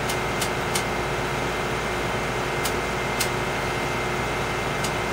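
Oscilloscope control knobs clicking about six times at uneven intervals as they are turned to sync the trace, over a steady hum and hiss of bench equipment with a faint high whine.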